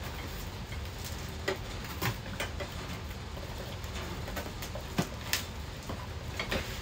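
Scattered light clicks and knocks of cardboard packaging and plastic parts being handled in a box, as an animatronic prop's mechanism is worked free of its packing.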